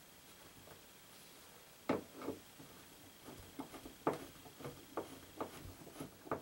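A #10 x 3-inch wood screw being turned in by hand with a #2 square-tip (Robertson) screwdriver. After about two quiet seconds come faint, irregular clicks and creaks as the screwdriver turns and the screw bites into the wood.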